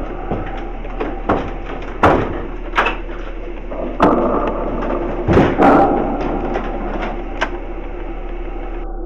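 Knocks and clunks from footsteps and from handling a VHS cassette and a VCR, loudest about two, four and five and a half seconds in, over a steady low hum.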